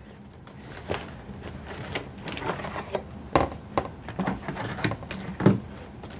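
Clear plastic Magna-Tiles magnetic building tiles clacking as stacks of them are set down and snap against each other: a series of sharp clacks, the loudest about five seconds in.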